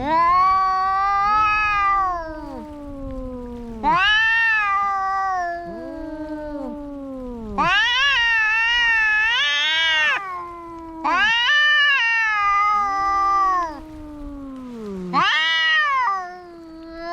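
Two domestic cats caterwauling in a fight standoff: about five long, drawn-out yowls that rise and fall in pitch, with a lower, wavering moan from a second cat beneath them.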